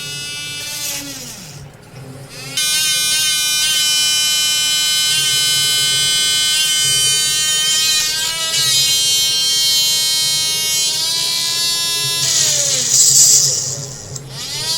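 Small motor of a handheld mini USB electric drill whining. It spins up, runs at a steady high pitch for about ten seconds, then winds down near the end.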